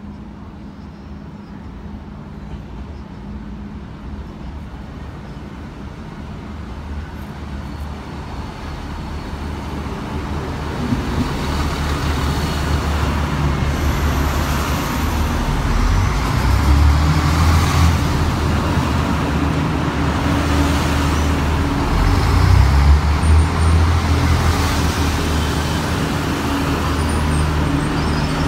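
Train approaching, its low rumble and engine tones building steadily louder over some ten seconds and staying loud, with a few brief high-pitched squeals.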